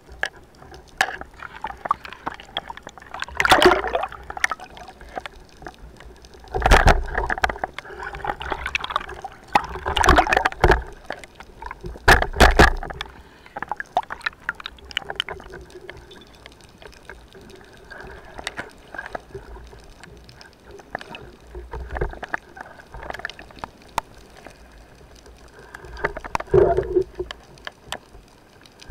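Underwater sound picked up by a camera mounted on a speargun: water gurgling and sloshing, with many sharp clicks and several loud rushing knocks spread through, while a speared greater amberjack struggles on the line.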